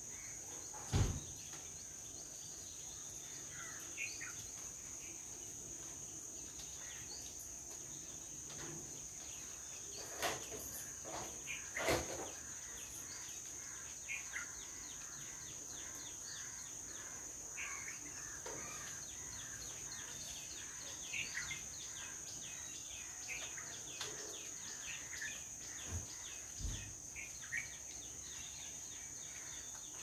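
Natural ambience: a steady high insect drone, like crickets, with scattered short bird chirps. A few brief dull knocks stand out, the loudest about a second in.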